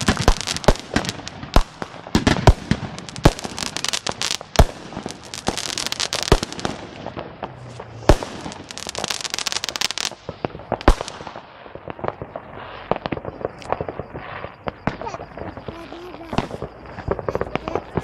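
Many fireworks and firecrackers going off at once: a dense run of sharp bangs over continuous crackling, thinning out somewhat about halfway through.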